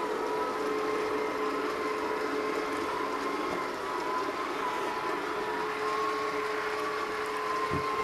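HomeHero robot vacuum running across carpet: a steady motor hum with a higher whine that wavers slightly in pitch.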